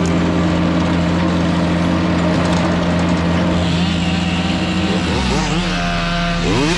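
Mini skid steer loader's small engine running at a steady speed. About five seconds in, its pitch starts swinging up and down as it is revved repeatedly.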